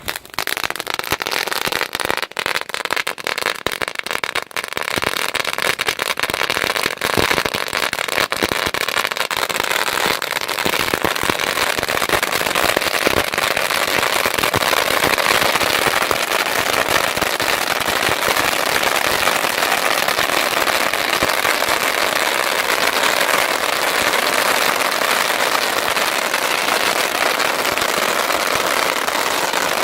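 A row of crackling firework fountains going off. It starts suddenly with scattered sharp pops for the first few seconds, then becomes a dense, steady crackle of many small pops.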